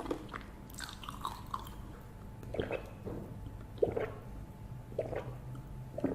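A person chewing food with wet mouth sounds: small clicks at first, then four soft, squelchy chews about a second apart, over a low steady hum.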